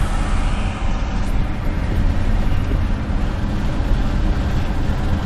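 Steady road noise inside a moving car's cabin: a low rumble of engine and tyres with a hiss of wind and road above it.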